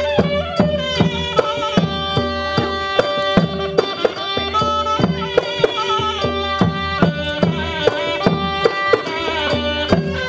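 Traditional Thai music: a wavering high melody over held tones, with a drum struck steadily about twice a second.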